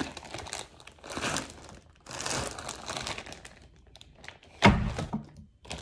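Rummaging through a handbag: rustling and crinkling of things inside it in several short bouts, with one loud thump about four and a half seconds in.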